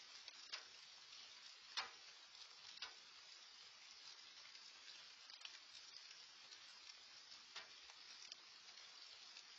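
Faint steady hiss of rain falling, with a few sharp drip taps close by, scattered unevenly.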